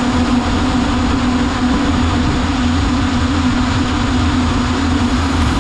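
FPV quadcopter's brushless motors and propellers running in flight, a loud steady buzzing hum with rushing air noise.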